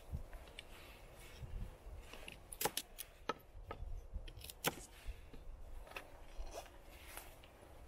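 Taxus Wisdom fixed-blade bushcraft knife carving wood: irregular scraping cuts and sharp snicks as the blade bites in and slices off thin shavings.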